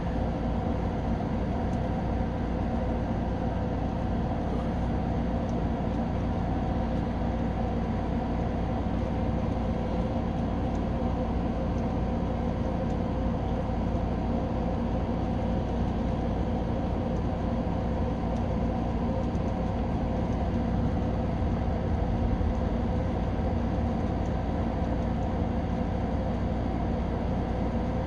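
Steady machine hum made of several constant tones over a low rumble, unchanging throughout.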